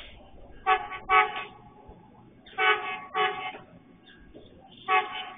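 Commuter train horn sounding short blasts in pairs, the pairs about two seconds apart, as a warning at a level crossing.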